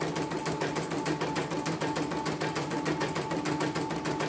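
Portable computerised embroidery machine stitching at speed: a rapid, even needle beat over a steady motor whine. It runs smoothly and fast on its newly replaced motor and power supply.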